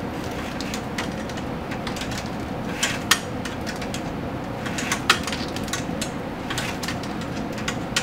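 Plastic spiral wrap being wound around a bundle of wires and a filament tube: light clicks and rustles of the plastic, with a few sharper ones about three and five seconds in, over a steady background hum.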